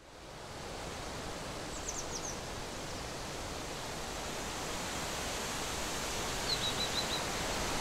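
Steady rushing outdoor noise, like a stream or waterfall, fading in from silence and slowly growing louder, with a few short high chirps about two seconds in and again near the end.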